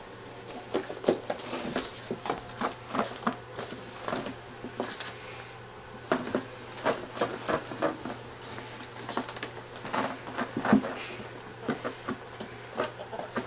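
Pet ferrets scampering and wrestling in a wire playpen: an irregular patter of quick scuffles and knocks, coming in rapid flurries.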